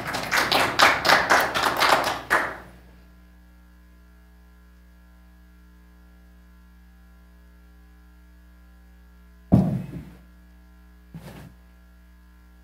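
A few people clapping in quick, even claps for about two and a half seconds, then a steady electrical mains hum. Near the end come a sharp thud and, a moment later, a smaller knock.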